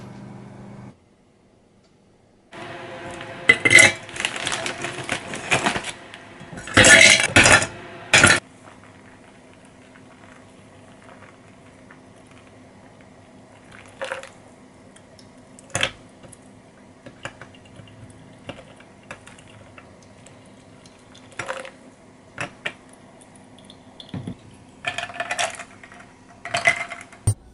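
Kitchen utensils and dishes clattering during baking prep: a few seconds of busy clatter about four to eight seconds in, then scattered single light clinks of utensils on bowls and dishes.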